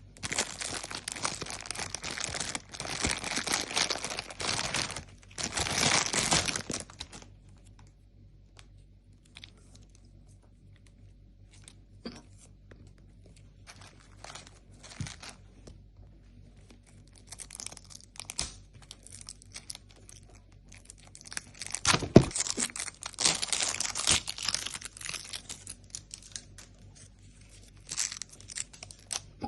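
Plastic packaging crinkling and tearing, in two spells: a loud stretch over the first seven seconds and another from about seventeen seconds until near the end, with scattered light clicks and rustles in between.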